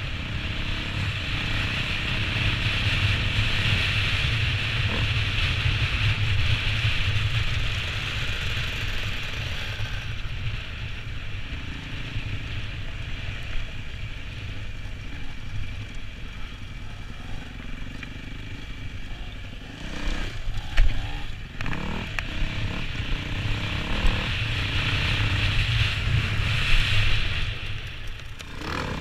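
Enduro motorcycle running off-road. A few sharp knocks and clatters come about two-thirds of the way through.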